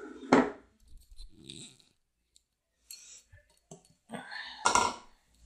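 A loud, sharp clack from the front-loading washing machine about a third of a second in. Near the end, rustling and a knock as laundry and the plastic dosing ball are handled in the drum.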